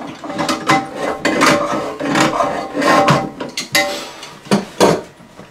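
Slip-joint pliers clicking, scraping and knocking against the supply-line nut under a toilet tank as the nut is worked loose. It is an irregular run of metal-on-nut clicks and rubs, with a few sharper knocks near the end.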